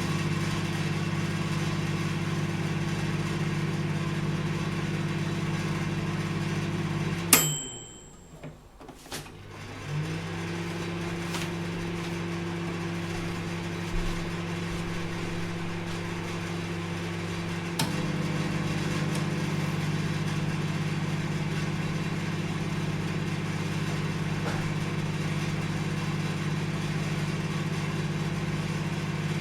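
Microwave oven running with a steady hum. About seven seconds in it cuts off with a sharp click and goes quiet for a couple of seconds, then starts humming again. A few light clicks follow, and near the end of the first twenty seconds another click slightly changes the hum.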